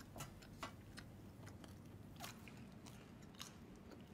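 Faint, irregular small clicks and chewing of a child eating french fries.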